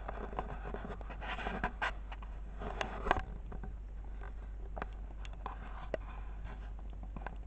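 Soft rustling of bedding and scattered light clicks and taps from handling, busiest in the first few seconds, over a steady low hum.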